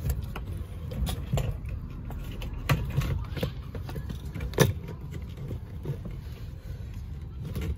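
Hard plastic fuel-line fittings and the fuel pump module being handled at the fuel tank opening, giving scattered sharp clicks and knocks, the loudest about four and a half seconds in, over a steady low rumble.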